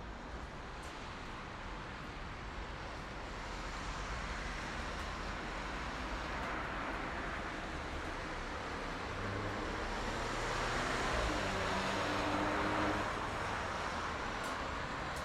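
Steady highway traffic noise: tyre hiss and engines of passing vehicles. A nearer vehicle swells louder about ten seconds in, then fades away.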